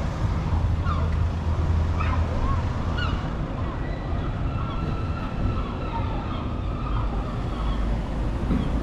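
Street traffic rumbling low and steady on a town high street, with a few short rising calls in the first three seconds and a steady high whine from about four seconds in.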